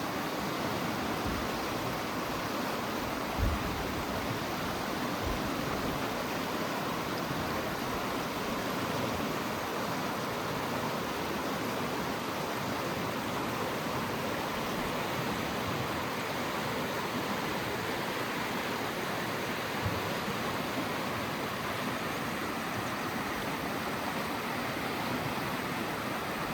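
Creek water rushing steadily. Two brief low thumps come through, one a few seconds in and one about two-thirds of the way through.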